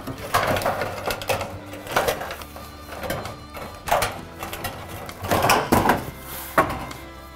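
Background music, with several knocks and rattles from a steel siding panel being handled and fitted into place.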